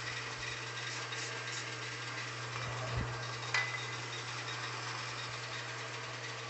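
Wood lathe running steadily with a low motor hum. A dull knock about three seconds in and a sharp click just after it.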